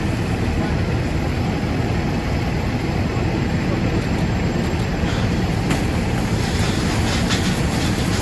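Steady, loud rushing noise of a fire hose stream played onto a fully burning car, with the fire engine's pump running low underneath.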